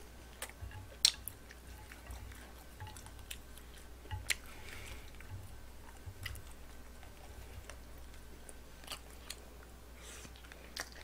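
A person chewing and slurping cold bibimmyeon noodles, with scattered short, sharp clicks and smacks.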